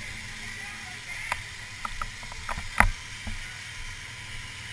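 A steady low engine rumble with scattered knocks and clatter, several close together, the loudest about three seconds in.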